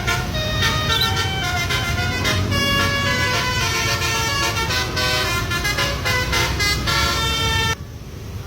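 Basuri (telolet) multi-tone air horn playing a melody of changing notes over a rumbling engine, cutting off suddenly near the end.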